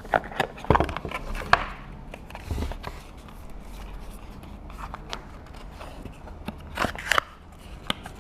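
Product packaging being handled and opened by hand: scattered clicks, scrapes and rustles, with a cluster of sharper knocks in the first couple of seconds and again about seven seconds in.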